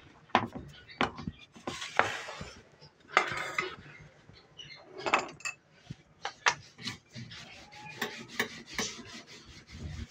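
Hands working paratha dough on a kitchen counter: irregular taps and knocks, with a couple of longer rubbing, scraping sounds as the dough is floured and pressed flat. A steel rolling pin starts rolling over it near the end.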